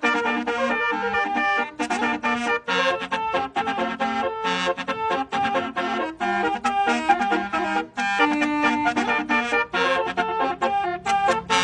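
Basuri multi-tone musical air horn playing a fast melody, note after note with short breaks between them.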